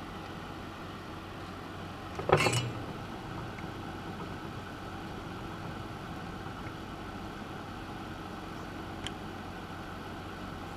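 A steady low hum under a short, sharp knock or clatter about two seconds in, the loudest sound, and a faint click near the end.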